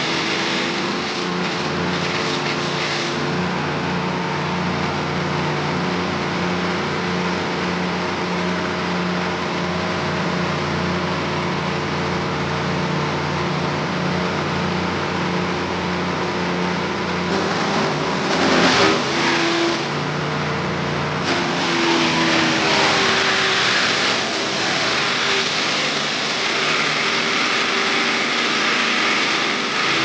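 Engine-driven wood chipper-shredder running steadily at speed while dry coconut-leaf stalks are fed in. Louder bursts of shredding noise come a little past halfway and again for a few seconds after, as the stalks are chewed up.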